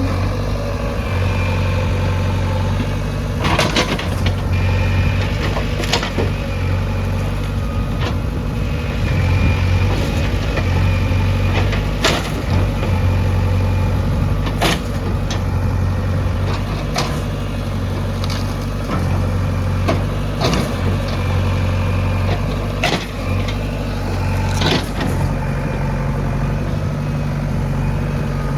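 Heavy diesel engine running steadily, its low note swelling and easing every second or two as the load changes, with scattered sharp clanks throughout.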